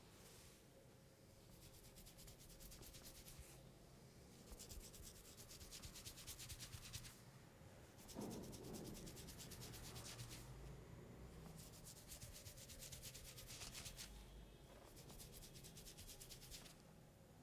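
Hands rubbing over skin and hair in a massage, rapid rubbing in several bursts of a few seconds each, with a soft low thump about eight seconds in.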